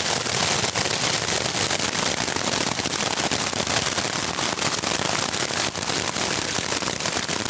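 Heavy rain and hail pelting the Dyneema fly of a Durston X-Mid Pro 2+ tent, heard from inside: a loud, steady, dense clatter of countless sharp impacts on the fabric.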